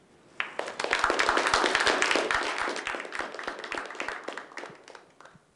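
Audience applauding. The clapping starts about half a second in, is at its loudest over the next couple of seconds, then thins out and dies away near the end.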